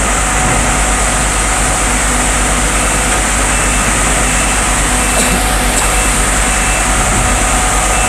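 Fenghua DS-60 fog cannon running steadily: its fan blowing and water mist hissing over a low engine hum. From about three seconds in, a short high beep repeats at a steady interval.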